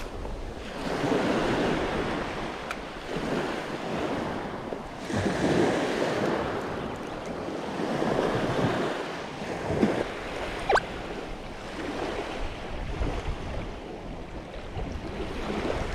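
Small waves breaking and washing up a sandy beach, swelling every two to three seconds, with wind on the microphone. A single sharp click about eleven seconds in.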